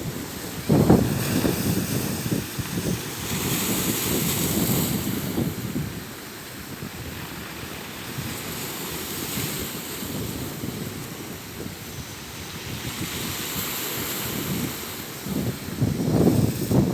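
Sea surf washing on the shore, swelling and easing, with wind buffeting the microphone in gusts near the start and the end.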